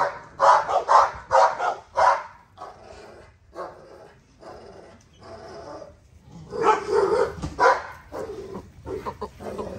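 A dog barking: a quick run of loud barks over the first two seconds, a few quieter seconds, then another burst of barking about two thirds of the way through and scattered smaller barks near the end.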